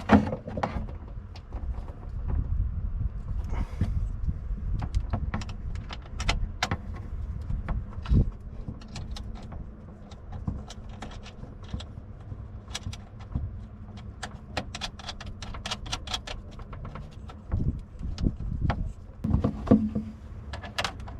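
Hand tools and metal battery hardware clicking and clinking as cable lugs and terminal nuts are fitted back onto a battery post, with irregular small taps and handling rumble. A faint steady low hum runs underneath.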